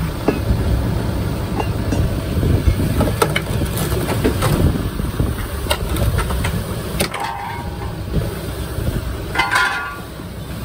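Forklift lowering a Tesla Model 3 battery pack away from the car body: a steady low machine rumble with scattered metal clanks and knocks, and a couple of short high-pitched sounds near the end.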